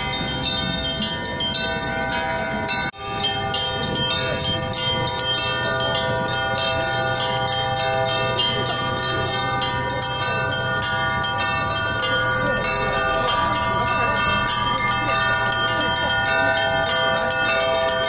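A set of Orthodox church bells hung in a frame on a truck bed, rung continuously together in a dense, overlapping peal. The ringing briefly cuts out about three seconds in, then resumes.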